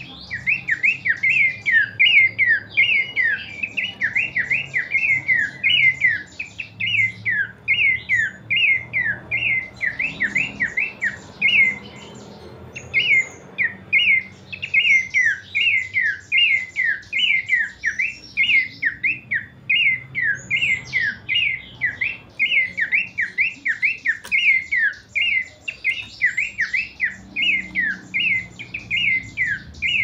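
Pelanduk semak (Horsfield's babbler) calling: a long string of sharp, down-slurred notes, about two a second, broken by a couple of brief pauses.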